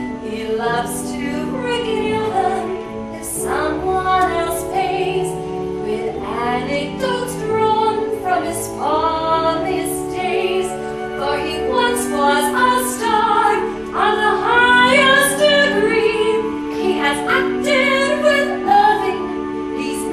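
A woman singing a show-tune melody over musical accompaniment in a live stage-musical performance.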